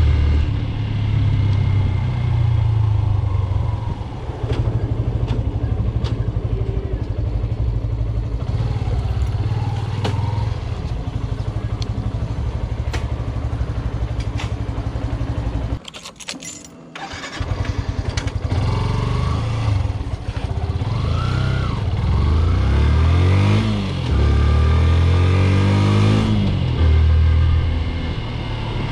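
Yamaha FZ version 2.0's single-cylinder engine running under way, pitch rising as it is revved up through the gears several times. It drops away briefly about halfway through, then picks up again.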